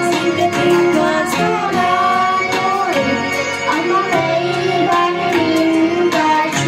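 A young girl singing a solo into a handheld microphone over instrumental accompaniment with a steady beat.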